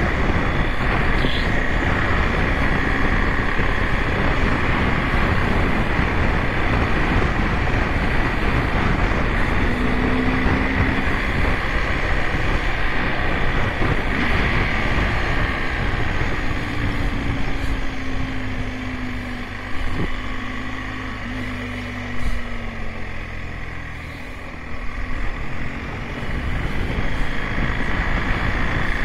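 BMW GS Adventure motorcycle under way, its engine running under steady road noise. Around two-thirds of the way through it eases off, the engine note falling and the sound dropping lower for several seconds, then it picks up again near the end.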